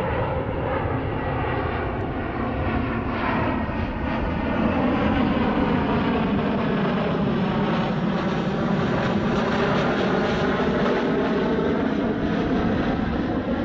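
B-2 Spirit stealth bomber's four turbofan engines passing overhead on landing approach with its gear down: a steady, loud jet rush that swells about four seconds in, with a slow sweeping, phasing tone as it goes by.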